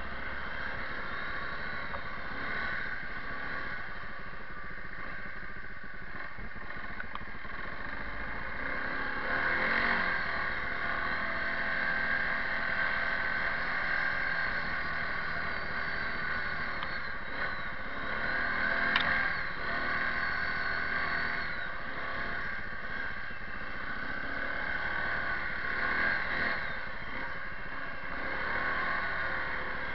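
Kawasaki Prairie 360 ATV's single-cylinder engine running as it is ridden through snow, the revs rising and falling with the throttle and swelling louder several times. A single sharp click about two-thirds of the way through.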